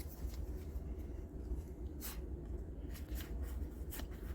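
Faint rustling and a few soft taps from trading card booster packs being handled, over a low steady hum.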